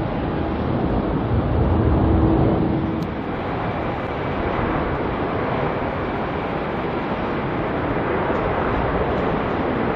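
Jet airliner engine noise across the airfield, a steady rushing, mixed with wind buffeting the microphone. About three seconds in the sound changes abruptly and a steady low hum stops; the rushing then slowly grows.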